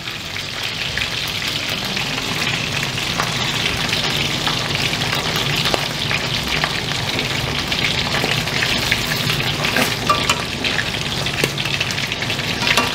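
Chicken pieces frying in achiote oil in an aluminium wok: a steady crackling sizzle full of small pops as the hot oil spatters, because the chicken is still wet.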